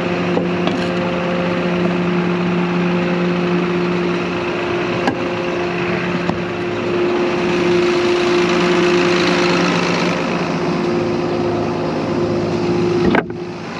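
Tractor engine idling steadily, an even hum with a constant pitch. A single sharp click about five seconds in.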